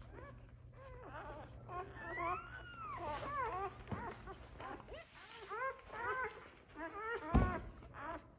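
One-day-old Australian Labradoodle puppies squeaking and whining as they nurse: many short, overlapping squeals that rise and fall in pitch, with one longer whine about two seconds in. A dull bump sounds near the end.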